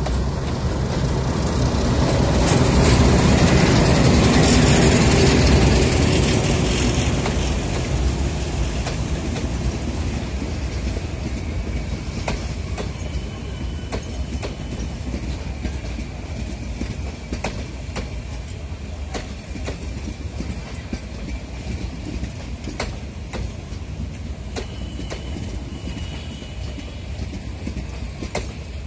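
Diesel locomotive hauling a passenger train passing close by, loudest a few seconds in. A long string of passenger coaches then rolls past, wheels clicking over the rail joints, with a couple of brief faint wheel squeals.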